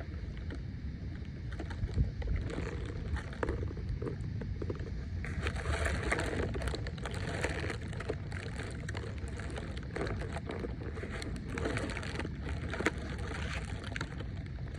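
Wind blowing across a lake and rumbling on the microphone, with water lapping and small irregular splashes.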